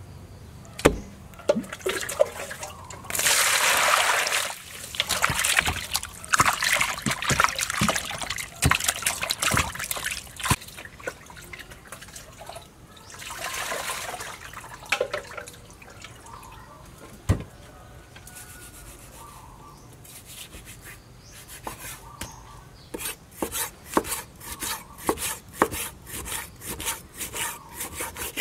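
Water splashing as vegetables are washed in a plastic colander and bowl, twice in longer spells, with scattered knocks of handling between. About two-thirds of the way in, a knife starts chopping raw pork on a wooden board in quick, even strokes, about three or four a second.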